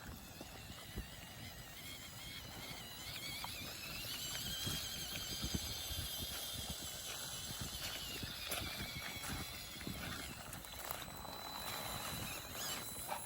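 Redcat Ascent-18 1:18-scale RC crawler's brushed electric motor and gears whining, the pitch climbing for a couple of seconds and then sinking again as the throttle is worked, with scattered clicks and crunches underneath.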